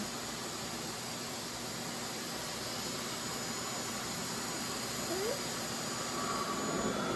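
RevAir reverse-air hair dryer running steadily, its motor drawing air through the hose and wand with an even rushing hiss.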